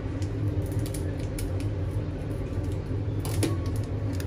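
A steady low hum, with a few faint light clicks about a second in and again a little past three seconds.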